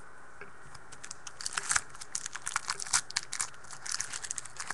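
Trading card pack wrapper being torn open and crinkled: a dense, irregular run of crackles that starts about a second in.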